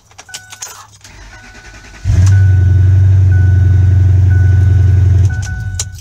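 Keys jangling in the ignition of a 2008 Ford F-250, then about two seconds in its 5.4 L V8 engine comes on loud and runs steadily for about three seconds before it is switched off and dies away. A faint high beep sounds on and off.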